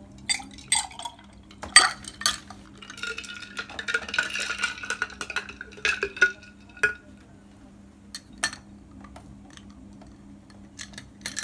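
A milky drink poured from a glass pitcher into a drinking glass: sharp glass clinks at first, then a few seconds of splashing liquid filling the glass, followed by scattered light clinks of glassware.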